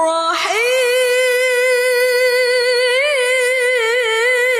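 A woman's voice in melodic Quran recitation (tilawah), drawing out the basmala. A new phrase starts just after the beginning with a quick rise in pitch, then one long note is held with a slight waver and a short ornament about three seconds in.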